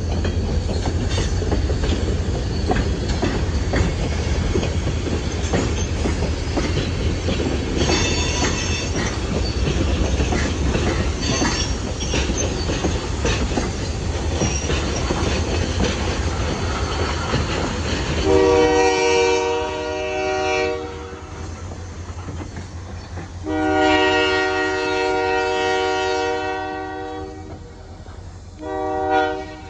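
A passing train rumbling, its wheels clacking over the rails, then Nickel Plate Road 765's steam whistle blowing a chord in a long, a long and a short blast, with a final long blast just beginning: the grade-crossing whistle signal.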